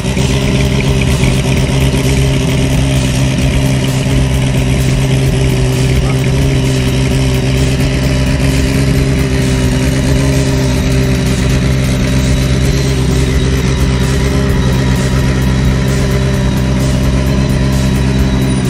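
Rally car engine running loud and steady at constant revs for the whole stretch, an even drone with no revving up or down.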